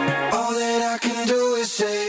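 Background music: a song whose melody carries on over a thinned-out accompaniment, with the bass dropped out.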